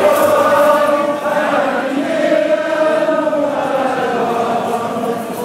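A large crowd singing a song together, many voices in unison on long held notes.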